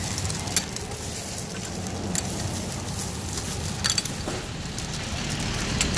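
Clear plastic bag crinkling and small plastic jelly cups clicking against each other as they are dropped into the bag, with a few sharp clicks over a steady background hum.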